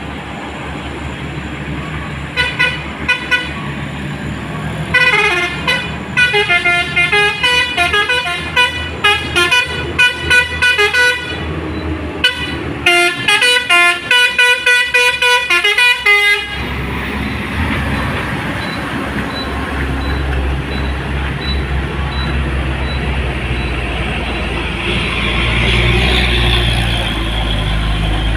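A truck's musical 'telolet' horn plays a quick tune of short tooting notes in two stretches, breaking off briefly near the middle and stopping a little past halfway. After that the low, steady drone of a heavy diesel truck engine under load on the climb takes over.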